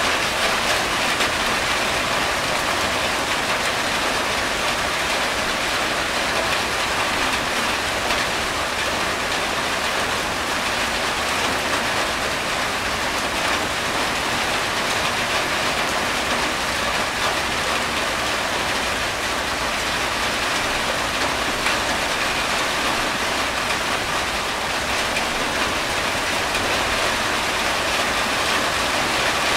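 Steady rain falling on a corrugated tin roof, an even hiss of drops with rainwater running off the roof edge.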